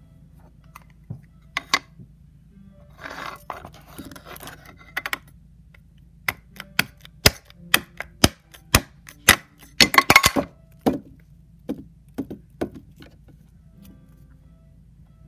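A hard object tapped and scraped against a round metal tin and a wooden tabletop. There is a brief scraping rustle a few seconds in, then a run of sharp taps about two a second, with a quick cluster of clicks near the end of the run.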